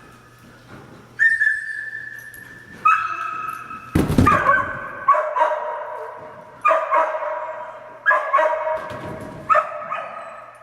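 Dog barking repeatedly, about one bark every second and a half, with a loud thump about four seconds in.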